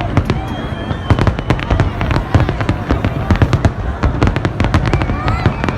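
Fireworks display going off in rapid succession: a dense, continuous run of bangs and crackling reports, several a second, overlapping one another.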